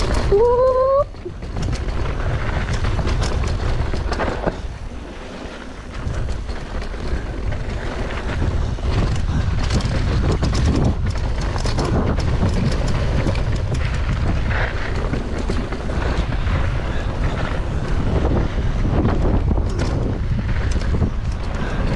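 Wind buffeting the microphone of a handlebar-mounted camera on a mountain bike riding fast down a dirt trail, with the clatter and knocks of the bike and tyres over the bumps. It eases off briefly about four seconds in, then runs on steadily.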